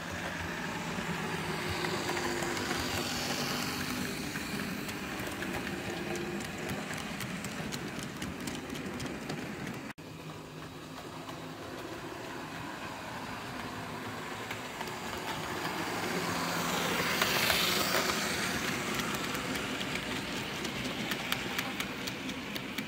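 Model train running on a layout: the electric motor of a Lima Class 31 model diesel locomotive hums while its wheels click over the rail joints, with a short break about halfway. In the second half it grows loudest as tank wagons roll close past, the clicking coming quickly.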